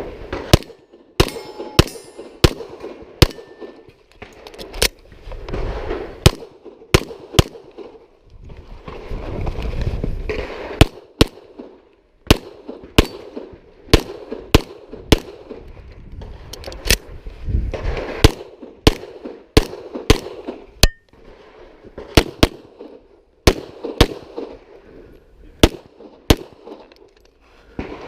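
Pistol shots fired at close range in quick strings, roughly one to two a second, several dozen in all. A few short breaks between strings are filled with rustling.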